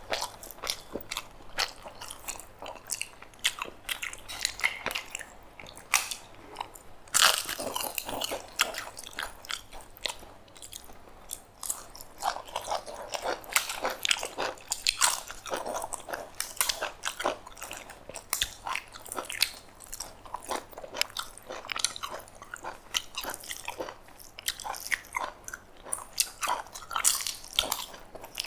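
A person eating: irregular crunchy bites and chewing of food, with mouth sounds between the bites.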